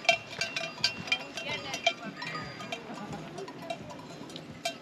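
Metal bells clanking irregularly, many quick strikes ringing on at the same few pitches.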